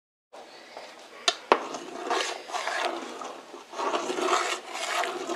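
Metal ladle stirring and scraping through a large metal pot of boiling water as ground lentil paste is mixed in, with two sharp knocks against the pot about a second in.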